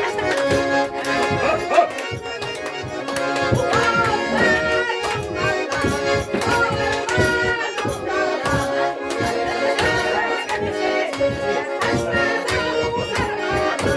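Garmoshka (Russian button accordion) playing a lively folk dance tune in held chords, over a dense rhythm of sharp percussive beats.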